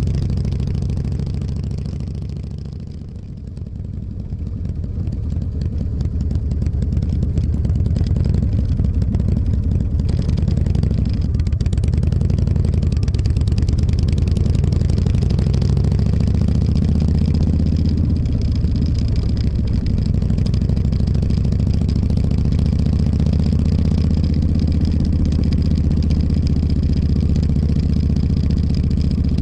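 Motorcycle engine running while under way, steady and loud, easing off about three seconds in and then pulling evenly again.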